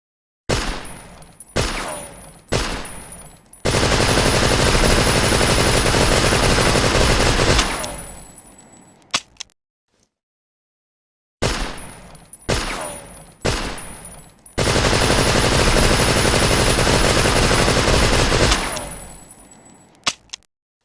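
Thompson submachine gun (Tommy gun) firing, twice in a row: three single shots about a second apart, then a sustained full-auto burst of about four seconds that dies away with an echoing tail, followed by a couple of faint clicks.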